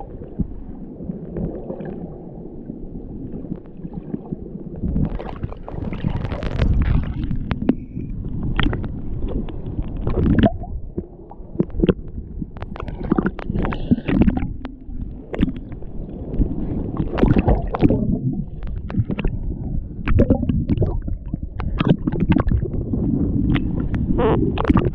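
Ocean surf surging and splashing over lava rocks: a heavy, uneven low rumble with sharper splashes breaking through every second or two.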